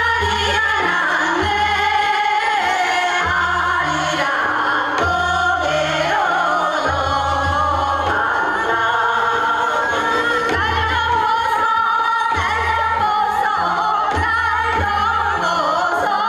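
A group of women singing a Korean traditional gugak song together, with long held notes that bend and waver in pitch, over instrumental accompaniment with a repeating bass line.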